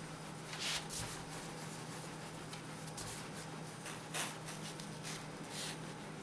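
Wooden rolling pin rolling a thin sheet of egg dough on a wooden board, the dough being wound around the pin. It makes soft, short swishes and rubs, about five of them, over a steady low hum.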